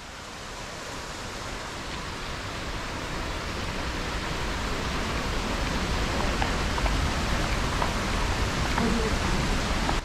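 Steady rushing of falling water, growing louder throughout as the waterfall is approached.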